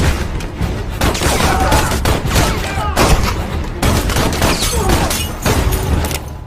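Sustained rapid gunfire, many shots in quick succession, with crashing impacts. It stops just before the end.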